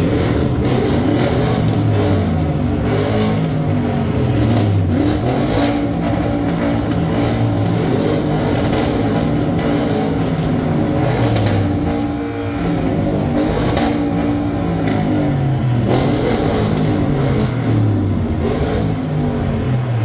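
Two Audi RS6 Avant twin-turbo V8s revving hard while parked, the engine note climbing and dropping again and again in a free-rev contest, with occasional sharp cracks from the exhausts.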